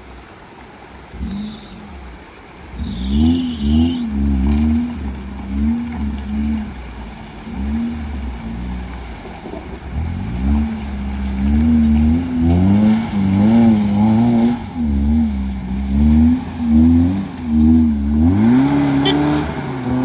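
Maruti Suzuki Gypsy 4x4's engine revving up and down again and again, starting about three seconds in, as it works over a rocky obstacle under load.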